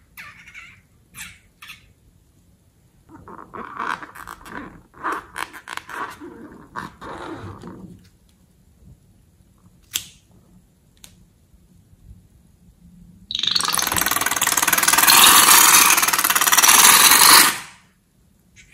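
Small clicks and crackling as a balloon is handled and slime is stirred in a glass bowl. About thirteen seconds in, a loud rushing noise lasts about four seconds and stops abruptly as a pink balloon is emptied into the slime.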